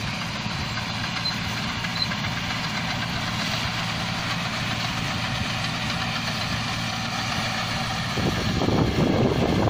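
Rice combine harvester's diesel engine running steadily. From about eight seconds in, a louder, rough rush of noise rises over it.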